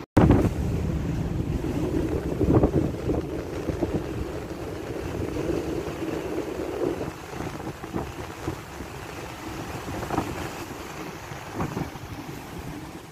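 Strong wind buffeting the microphone over the steady rush of a rough sea, with a few sharper gusts at about 2.5, 10 and 11.5 seconds in.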